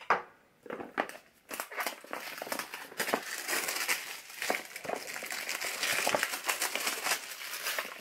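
A network card's cardboard retail box being opened by hand, its plastic packaging crinkling and rustling continuously; a sharp click right at the start.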